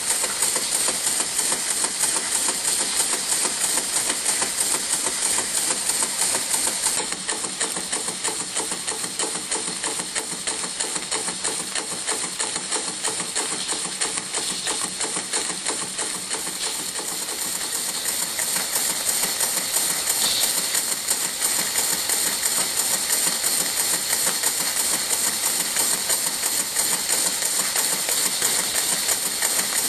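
1971 Polish Bio-Fiz educational model steam engine running steadily at speed: a fast, even beat of its strokes over a constant hiss.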